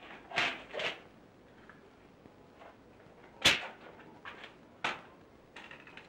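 Six or so short, sharp knocks and clunks, the loudest about three and a half seconds in: household things being moved and set down, like a drawer, cupboard or dishes.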